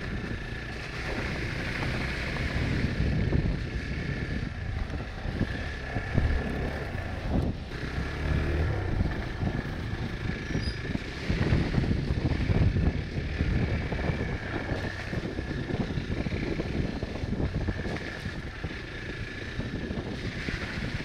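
Hero Xpulse 200's single-cylinder engine running as the bike is ridden, its sound uneven, with wind rumbling on the microphone.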